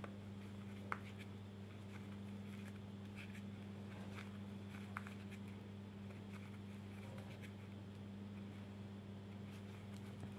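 Faint scratching and small clicks of a crochet hook pulling yarn through stitches while working single crochet decreases, over a steady low hum.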